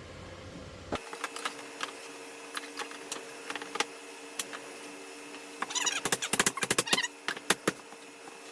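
Hard 3D-printed plastic parts clicking and knocking together as they are handled and fitted, with a burst of quick rattling clicks about six seconds in.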